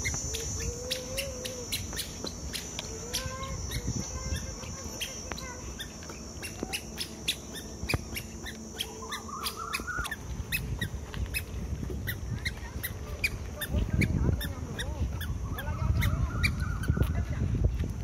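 Outdoor evening ambience: crickets trilling steadily, a run of light footsteps on a dirt path, and faint distant calls about nine and seventeen seconds in. A low rumble comes in during the last few seconds.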